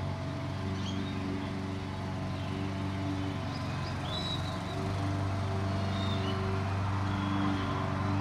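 A steady low mechanical hum, like a motor or engine running, with a few short, faint high chirps about a second in, around four seconds and near six seconds.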